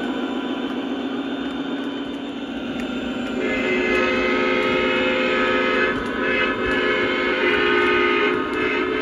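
O-gauge model diesel locomotive running on its track with its onboard engine sound, then sounding its horn in several blasts starting about three and a half seconds in.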